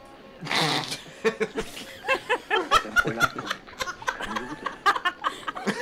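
Canned laughter from a dubbed-in laugh track: a run of quick, repeated chuckles starting about a second in, mixed over film dialogue.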